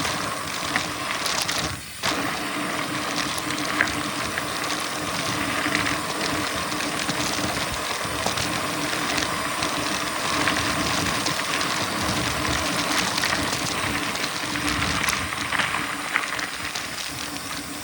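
Mountain bike coasting fast downhill without pedalling: steady rushing noise of wind over the microphone and tyres rolling on the dirt trail, with a faint steady hum, briefly dropping about two seconds in.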